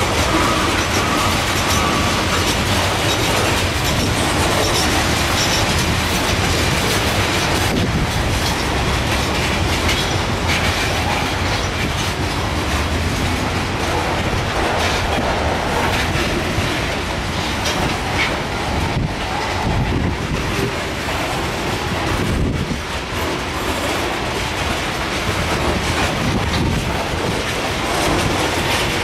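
Loaded coal hopper cars of a freight train rolling by: a steady rumble of steel wheels on rail with repeated clacks over rail joints. A thin high whine fades out in the first two seconds.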